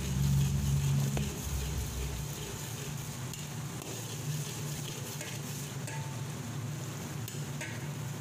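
Tomato paste and chopped garlic and onion sizzling in hot oil in a pan while a metal ladle stirs and scrapes through it. A low hum sounds under it, loudest for the first couple of seconds.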